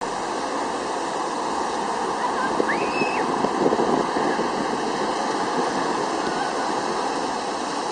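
Large fountain's water jets rushing and splashing steadily back into the basin.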